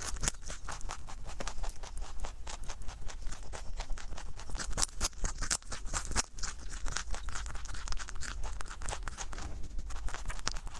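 Rabbit chewing raw carrot close to a microphone: fast, crisp crunching.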